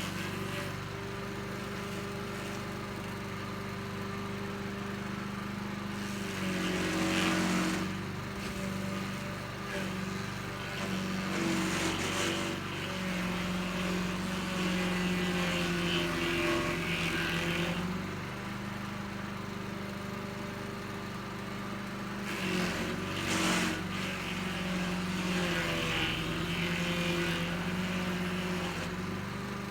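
Little Beast stump grinder's engine running steadily while its cutter wheel chews into a stump in several spells. With each spell a rough grinding noise rises over the engine and the engine's pitch shifts under the load.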